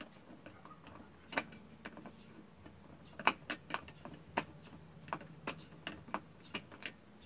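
Irregular small clicks and ticks of pliers and stiff wire against a plastic ceiling lamp receptacle, as the wire ends are bent over so they cannot stick out and short against the switch.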